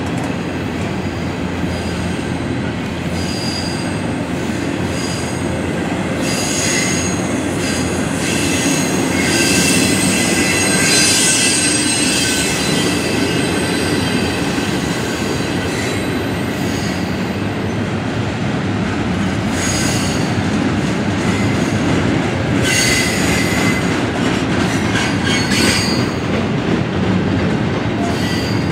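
Double-stack intermodal freight cars rolling past: a steady rumble of steel wheels on rail, with high-pitched wheel squeals that come and go, strongest about a third of the way in and again about three quarters through.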